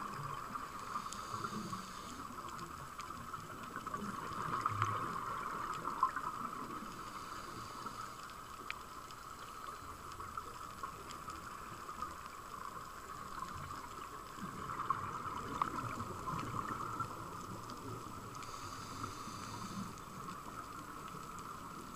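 Underwater ambience picked up by a diving camera on a reef: a steady muffled watery noise with scattered faint clicks and crackles.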